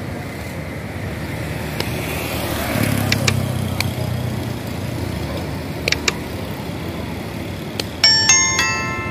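Steady outdoor traffic hum, with a vehicle engine passing by about three seconds in and a few sharp clicks. Near the end a bright, bell-like notification chime of several ringing notes rings out, the sound effect of a subscribe-button animation with its bell icon being clicked.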